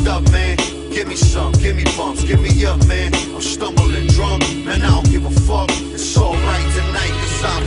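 Hip hop track: rapped vocals over a beat with a heavy, steady bass.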